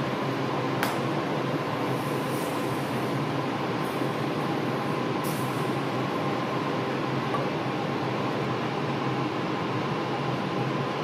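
Steady hum of commercial kitchen fans, with a faint whine held at one pitch. A few light clicks come about one, two and a half and five seconds in.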